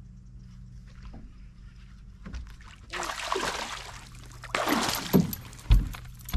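A hooked bass splashing and thrashing at the water's surface beside a boat, in two loud bursts about three and four and a half seconds in, followed by a sharp thud as the fish is swung up against the boat. A steady low hum runs underneath.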